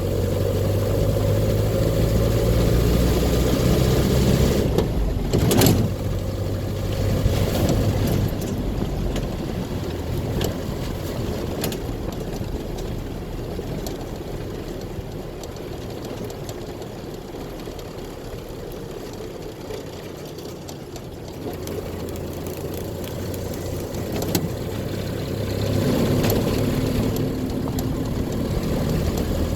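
Land Rover Series II's 2.25-litre four-cylinder petrol engine running under way, pulling harder at first. There is a sharp clunk about six seconds in, then the engine eases off and runs quieter through the middle before pulling harder again near the end.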